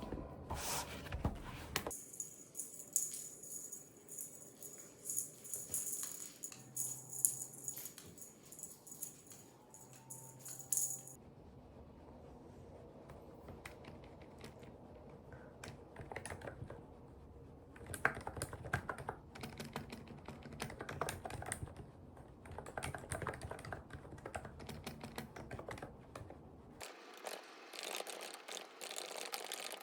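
Typing on a COX CF75 mechanical keyboard with orange switches: fast, irregular runs of key clicks, broken up by edit cuts.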